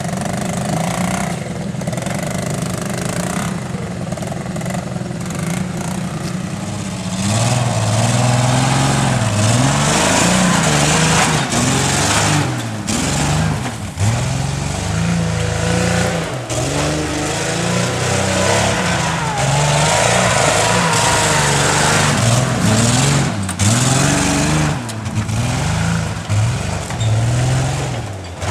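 Land Rover engine running at a steady speed, then from about seven seconds in revved hard again and again, its pitch rising and falling, as the four-wheel drive labours through deep sawdust.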